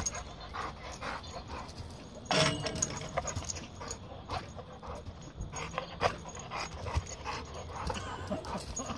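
A dog panting and whining in excitement as it leaps at a hanging tug toy, with short irregular sounds throughout and one louder cry about two and a half seconds in.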